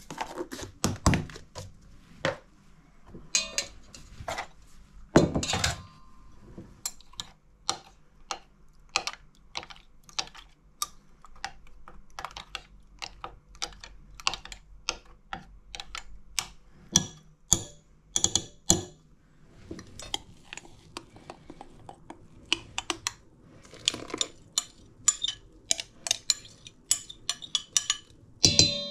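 A metal teaspoon stirring in a small glass jug of milky liquid, tapping and clinking against the glass in quick irregular strokes. The strokes come thicker in the second half, with a brief ringing clink near the end.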